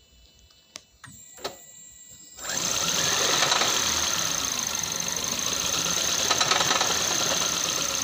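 A 2014 Toyota Aqua (Prius C) hybrid's 1.5-litre four-cylinder petrol engine starts abruptly about two and a half seconds in and runs rough and rattly, with a steady high whine over it. The rough running comes from a lean condition: unmetered air is getting in through a vacuum leak, and cylinder 3 is misfiring.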